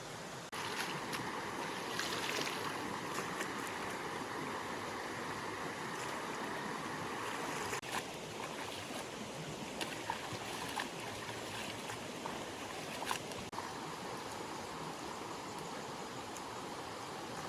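Stream water running steadily, with a few brief sharp clicks scattered through it.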